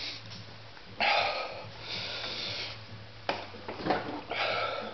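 A man breathing hard through the burn of a freshly eaten Bhut Jolokia ghost chilli: three long, noisy breaths and sniffs.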